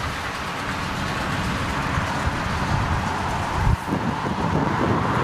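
Car on the move: a steady low rumble of engine and road noise, with a short thump a little over halfway through.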